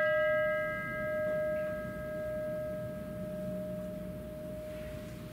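A struck bell ringing on and dying away after a single strike: one steady tone with fainter higher overtones, swelling and fading slowly as it decays.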